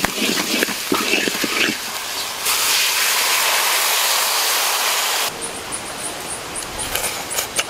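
Lemongrass and spices frying in oil in a large wok, crackling while they are stirred with a bamboo stick, then a loud, steady hiss of steam as liquid is poured in from a coconut shell. The hiss cuts off abruptly a little past the halfway point, leaving quieter sound with a high, regular ticking.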